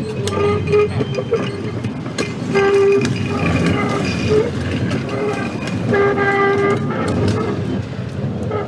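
Baltimore PCC streetcar rolling slowly round a tight curve: a steady rumble from its trucks with clicks over the rail, and three short steady-pitched squeals, about a second in, near the middle and again past two-thirds of the way.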